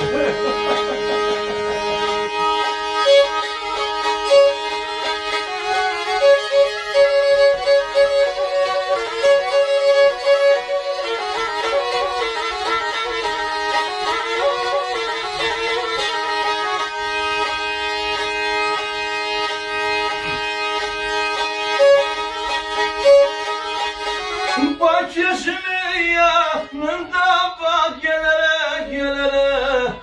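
Black Sea kemençe, a small bowed folk fiddle, playing an instrumental passage over steady drone notes, with sliding, wavering notes near the end.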